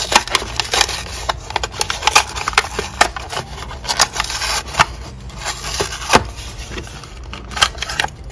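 Clear plastic blister of a carded Hot Wheels toy car being pressed in and torn away from its cardboard backing: dense crinkling and crackling with sharp snaps throughout.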